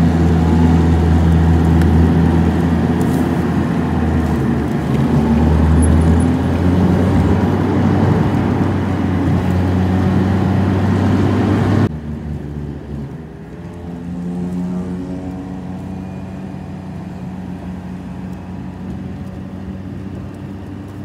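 Car engine and road noise heard from inside the moving car's cabin: a loud, steady low drone that drops suddenly to a quieter hum about halfway through.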